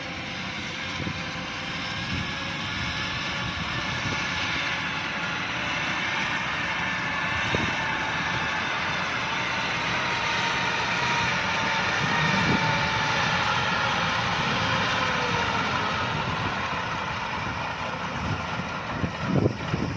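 Kubota DC-105X combine harvester running steadily, its engine and threshing machinery making a continuous mechanical din with faint whining tones that grows a little louder. A few knocks come near the end.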